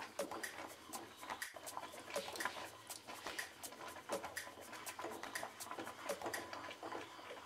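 Thick tomato sauce bubbling in a pan, with many small irregular pops, as a wooden spatula stirs through it.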